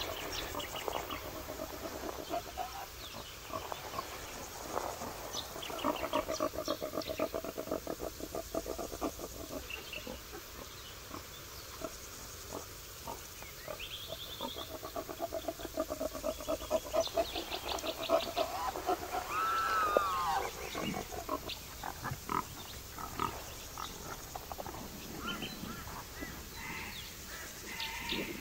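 A mix of wild animal and bird calls. There are long runs of rapid, rasping calls, high chirping trains above them, and a single arched call about two-thirds of the way through.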